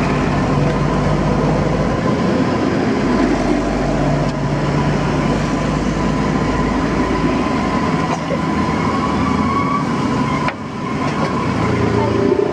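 Battered bananas deep-frying in a large wok of oil: a dense, steady sizzle over a low steady rumble, dipping briefly about ten seconds in.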